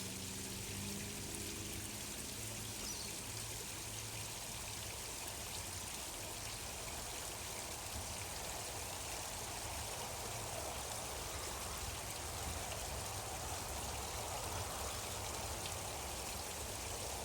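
Gently flowing stream water, a steady, even trickle and splash.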